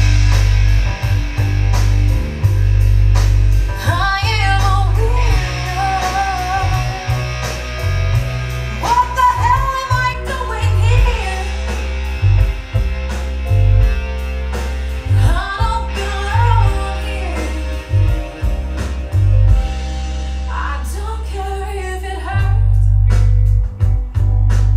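A song with a singer, guitar and heavy bass, played back through hi-fi loudspeakers and an active subwoofer; the deep bass eases off in the middle and comes back strongly near the end.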